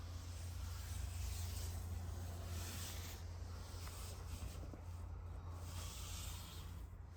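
Faint steady hiss over a low hum, with the hiss swelling and fading softly every second or two; no distinct event stands out.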